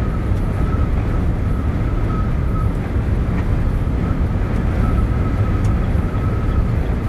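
Steady low noise of a truck cab while driving, the engine and tyres of a tractor pulling a loaded semi-trailer, with a faint thin whine that comes and goes.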